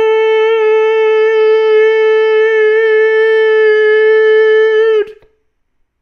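A single loud held note with a horn-like sound, steady in pitch with a slight waver, that cuts off abruptly about five seconds in.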